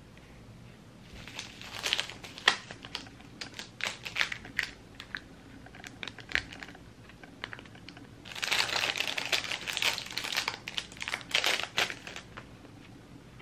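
Clear plastic packaging sleeves crinkling in the hands. Scattered crackles give way to a denser stretch of crinkling from about eight seconds in, which stops shortly before the end.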